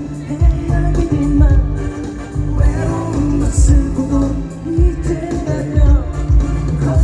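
Live amplified pop-rock song: a singer over a band with a steady kick-drum beat and a heavy bass line.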